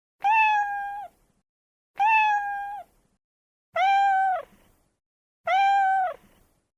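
Domestic cat meowing four times, about every 1.8 seconds; each meow lasts just under a second and holds a steady pitch before dropping off at the end.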